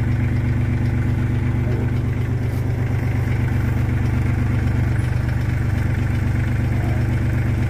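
Tractor engine idling steadily, an even unchanging run.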